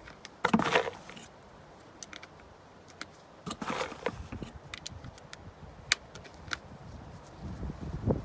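Small metallic clicks and clinks of .22 LR cartridges being pushed one by one into a Tec-22 pistol magazine, with a couple of louder rattles of handling about half a second and three and a half seconds in.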